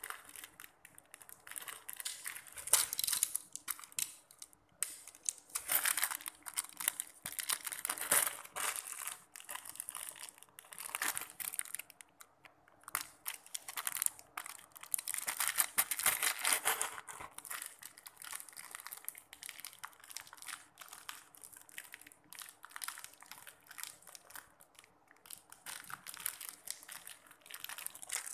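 Small plastic parts and plastic packaging being handled, with irregular bursts of crinkling and clicking, several of them louder than the rest.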